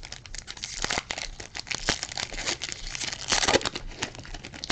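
Foil wrapper of a Rookies & Stars football card retail pack crinkling and tearing as it is ripped open, with a louder rip about three and a half seconds in.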